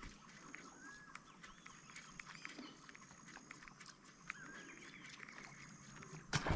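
Quiet open-water ambience: scattered short whistled bird calls over a steady thin high tone, with faint clicks throughout. A sudden loud burst of noise comes right at the end.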